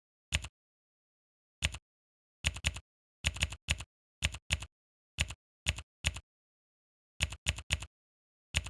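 Computer keyboard typing clicks: irregular single keystrokes and quick runs of two or three, with dead silence between them.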